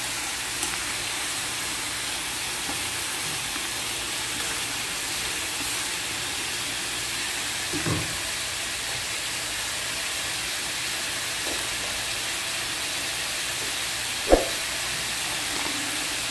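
Pork bone pieces frying in oil in a wok, giving a steady sizzle. A single sharp knock stands out about fourteen seconds in, with a weaker one near eight seconds.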